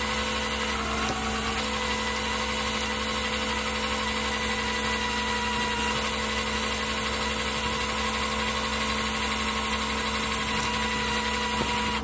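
Tow truck engine running steadily with an even hum, powering the winch that draws a snow-stuck car in on its chain.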